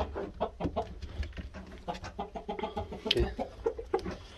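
Gamecock clucking: a steady run of short, low clucks, several a second.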